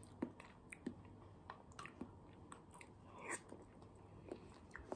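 Faint sounds of a person eating soft custard pudding with a spoon: quiet mouth and chewing sounds with small scattered clicks, and a short breathy sound about three seconds in.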